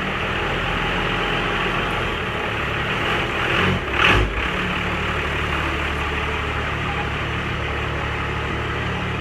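12-valve Cummins 5.9-litre inline-six diesel idling steadily while it warms up after a cold start, with one brief louder burst about four seconds in.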